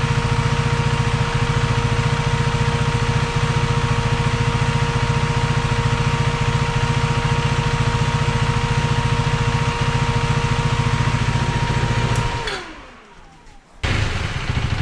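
KTM 390 Duke idling with its radiator fan running, a loud, steady whine over the engine. About 12 seconds in the bike is switched off and the whine slides down and stops. After a brief lull, the other 390 Duke is heard idling near the end.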